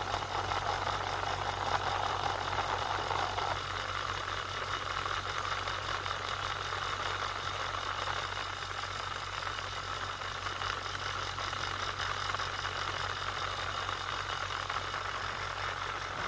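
A 3500 BTU marine air-conditioning unit running steadily, its compressor humming under the rush of air from its blower. About three and a half seconds in, the air noise drops slightly in pitch range and then carries on steadily.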